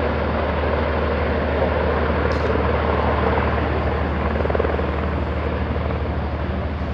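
Steady low drone of a passenger vessel's engines heard from its deck, with a broad rushing noise over it.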